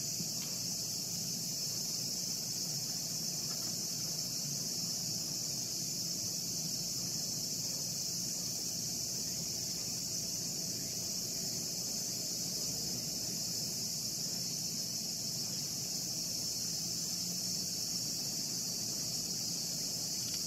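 Steady high-pitched insect chorus droning without a break, over a faint low rumble.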